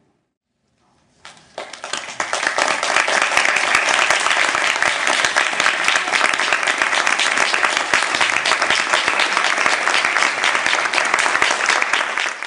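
Audience applauding: many hands clapping, starting about a second in, swelling quickly and then holding steady and loud.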